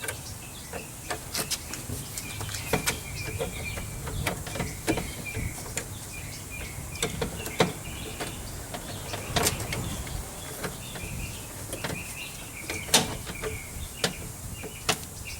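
Scattered light clicks and knocks of hands working the door's metal locking rods against the plastic clips on the back of the interior door handle, inside the door frame. Birds chirp faintly in the background.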